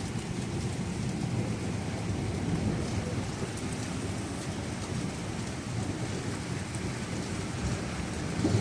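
Heavy rain pouring steadily, with a low rumble of thunder under it.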